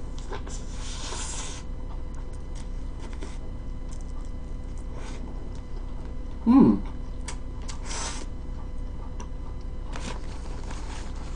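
Close-up mouth sounds of a person chewing a bite of fish sandwich, with one short, loud hummed "mmm" of enjoyment about six and a half seconds in.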